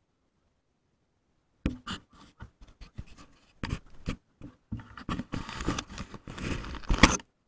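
Handling noise on the camera and its microphone: a string of scratchy clicks, knocks and rustles as it is gripped and moved, starting about two seconds in and busiest near the end.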